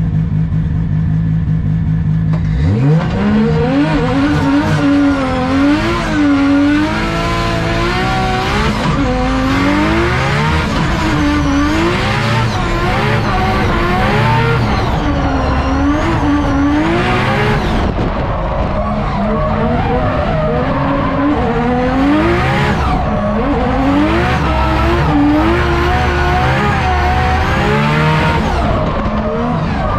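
Drift car heard from inside during a passenger ride. The engine idles briefly, then revs up hard as the car launches about two and a half seconds in. Through the rest of the run the revs climb and drop over and over as the car drifts, with continuous tyre squeal and skidding.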